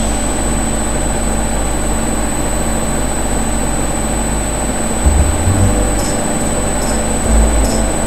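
Hotpoint front-loading washing machine running with shoes in the drum: a steady rushing drum noise, with a few low thuds about five seconds in and again near the end as the shoes knock inside the turning drum.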